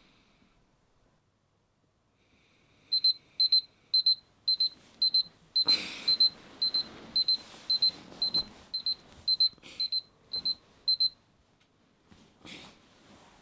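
Mobile phone alarm: a short, high electronic beep repeating about twice a second for about eight seconds, then stopping. Bedding rustles loudly as the sleeper stirs and reaches for the phone.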